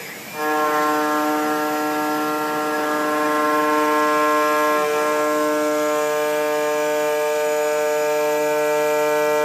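CNC mill's 12.7 mm three-flute end mill, spinning at 7000 rpm, cutting metal under coolant spray. About half a second in the sound jumps to a loud, steady singing tone with several overtones, which holds through the cut.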